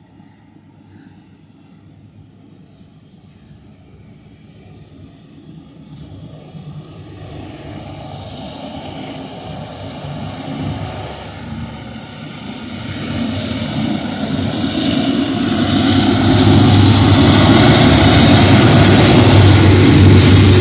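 Norfolk Southern freight train's diesel locomotives approaching, their low, steady engine drone growing from faint to loud. It reaches full loudness about three quarters of the way in as the lead units pass close below.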